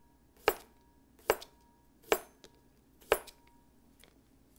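Kitchen knife slicing a Japanese cucumber into thin rounds on a cutting board: four sharp chops, about one a second, with the blade knocking the board each time. They stop about a second before the end.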